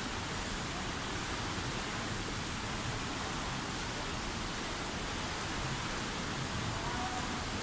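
Indoor swimming pool ambience: a steady wash of water noise from several swimmers splashing through their lengths.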